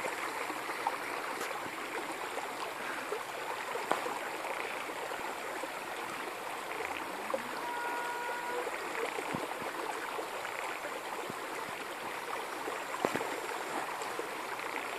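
Steady outdoor rushing hiss, with a few faint sharp clicks and a brief high tone about eight seconds in.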